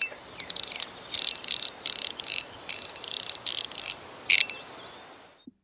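Anodized aluminium fidget slider clicking: irregular runs of sharp, high clicks and clacks in quick bursts, cutting off abruptly near the end.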